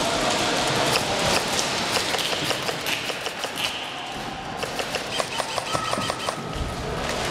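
Airsoft guns firing: scattered sharp clicks and pops, with a short rapid burst of evenly spaced shots about five seconds in.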